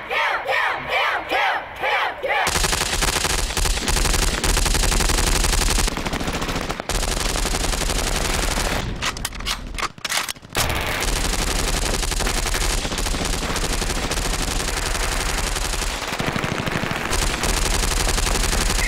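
A group shouting in unison for the first couple of seconds, then sustained rapid automatic gunfire from several rifles, with two brief breaks.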